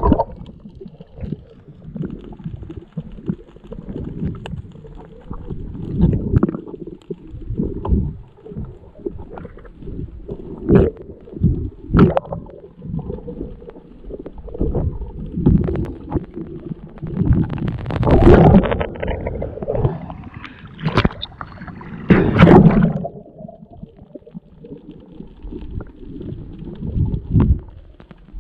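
Muffled underwater water noise heard through a waterproof camera housing while diving: irregular swishes, gurgles and knocks of moving water, with two longer, louder stretches about two-thirds of the way through.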